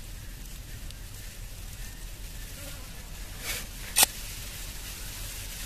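A fly buzzing close by, steady and low, while a hand gropes in a muddy, water-filled eel hole. About three and a half seconds in there is a short rustle, then a sharp click that is the loudest sound.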